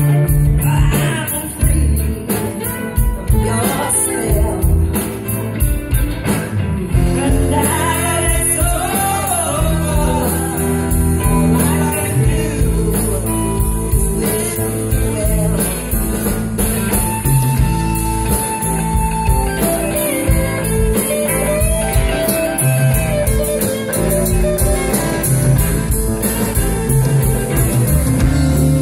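Live blues band playing: electric guitars, keyboard, bass and drum kit over a steady beat, with a woman singing.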